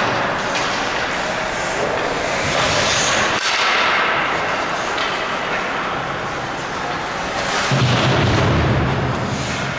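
Ice hockey game sound in an indoor rink: a steady noisy wash of skates on ice and sticks, with players' voices mixed in. A loud low rumble comes in near the end and lasts about a second and a half.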